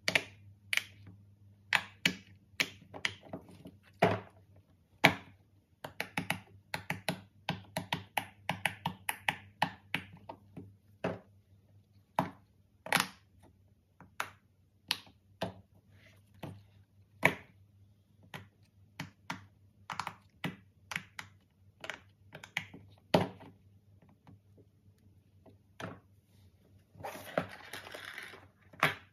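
Silicone pop-it fidget toy bubbles being pushed through by fingertips, giving a run of sharp pops at uneven spacing, at times several a second. Near the end, a rustling scrape of about a second and a half as a cardboard box is handled.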